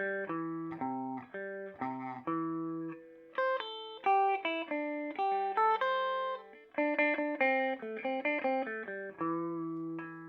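Electric guitar played through a Peavey Bandit 112 combo amp's clean channel, a clean tone. It plays a melodic line of picked single notes and two-note shapes, mostly quick, with a few notes left to ring out.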